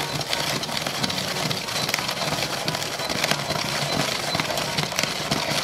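Hand-cranked Olaf snow cone maker crushing ice: the plastic crusher grinds the cubes into shaved ice as the handle is turned, a steady dense crackle of many small crunches.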